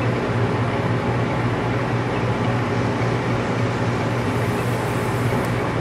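Room air conditioner running: a steady hum with an even hiss of airflow.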